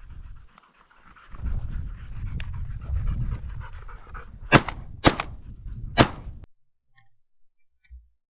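A dog panting close by. About four and a half seconds in come three sharp shotgun shots, the second half a second after the first and the third about a second later. The sound cuts off abruptly soon after.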